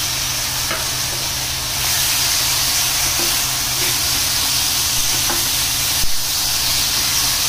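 Okra sizzling in hot oil in a stainless steel pan as a yogurt and spice mixture cooks in, a little louder about two seconds in. A wooden spatula stirs, knocking against the pan about six seconds in.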